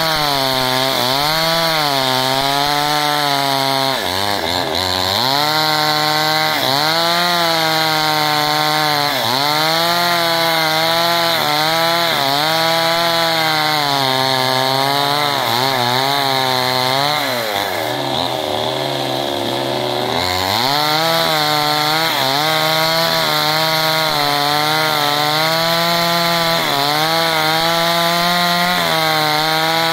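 Two-stroke chainsaw at full throttle ripping lengthwise along the grain of a hard log. Its pitch dips and recovers about once a second as the chain bites and the bar is worked through the cut. About two-thirds of the way through, the revs sag for a couple of seconds under load before climbing again.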